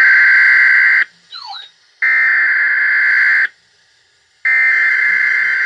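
Emergency alert data tones sounding three times, each a steady, buzzy, high-pitched burst of about a second and a half separated by roughly a second of gap. This is the digital header that marks the start of an emergency alert broadcast. A faint brief sliding sound falls in the first gap.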